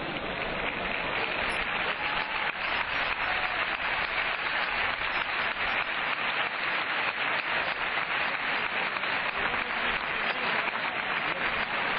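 Stadium crowd applauding: a dense, steady clatter of many hands clapping, swelling slightly in the first second.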